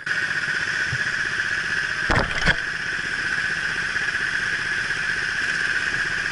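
Kart engines running steadily close to an onboard camera, with one short rev whose pitch falls away about two seconds in.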